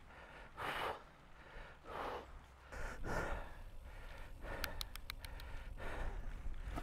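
A cyclist breathing hard, with heavy breaths about a second apart: he is catching his breath after a steep climb on his recumbent bike. A few short, faint clicks come just past the middle.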